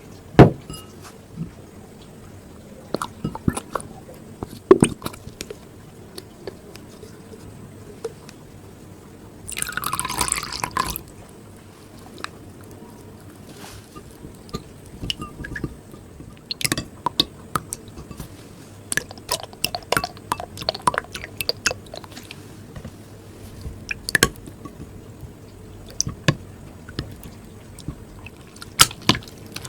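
Slime-making sounds: scattered clicks, taps and drips of bottles, containers and tools, with liquid poured into a container for about a second and a half around ten seconds in.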